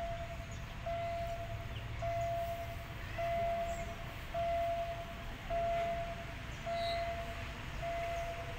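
Railway level-crossing warning signal sounding as a train approaches: a single steady electronic tone, each beep under a second long, repeating a little more than once a second over a low steady rumble.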